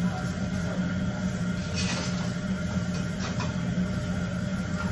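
Steady low mechanical hum with a few faint clicks and chewing sounds from someone eating.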